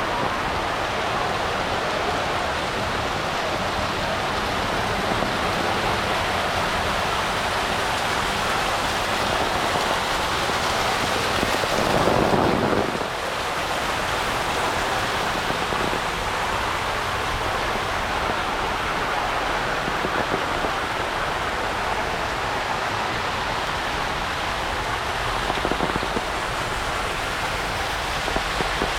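Heavy rain falling steadily in a thunderstorm, with one louder rush lasting about a second roughly twelve seconds in.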